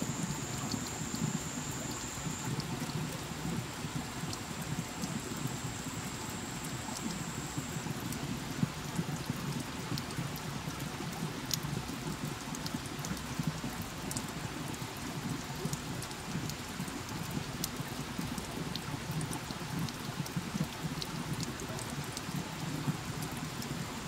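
Water drops falling steadily onto wet rock and leaves: a continuous patter with scattered sharper single drips.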